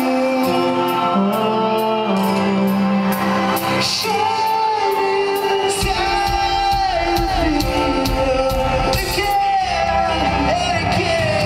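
Live rock band playing with a sung vocal line over sustained chords, heard from the crowd in a large hall. The bass and drums come in heavily about six seconds in.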